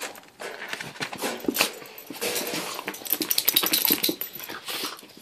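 A Boston terrier making small vocal sounds amid a run of light clicks and rattles from its wire dog crate as it is let out.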